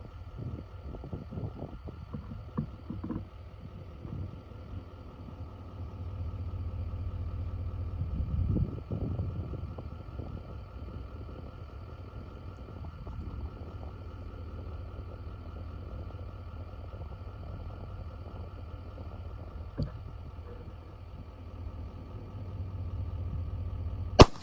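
A low steady rumble, then near the end a single rifle shot, the loudest sound, with a short echo trailing off.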